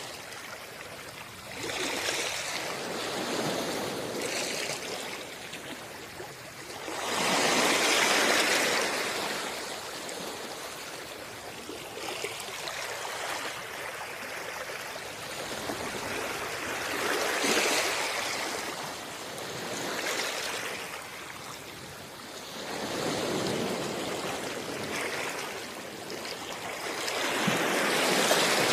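Sea waves breaking and washing up a shore, swelling and ebbing every few seconds, with the largest surges about seven seconds in and near the end.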